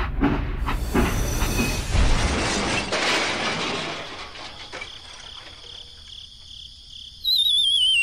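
A rumbling, rattling machine noise that dies away over the first few seconds. Near the end, a loud warbling electronic tone starts and glides downward.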